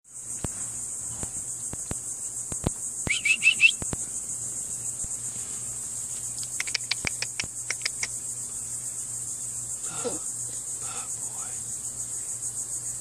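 Steady high-pitched chorus of insects such as crickets. A quick run of four chirps cuts in about three seconds in, and there are scattered sharp clicks.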